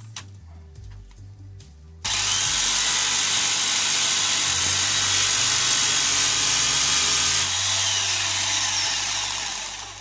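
Jigsaw with an HSS metal-cutting blade sawing through thin sheet metal. It starts suddenly about two seconds in, runs loud and harsh for about five seconds, then dies away near the end.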